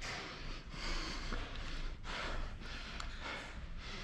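A player breathing hard and close to the microphone, a hissing in-and-out about once a second, over a low room rumble.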